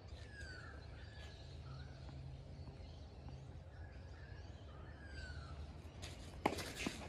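Birds giving short sliding whistled calls over a low, steady background hum. Near the end come a couple of sharp knocks of a tennis ball being struck and bouncing.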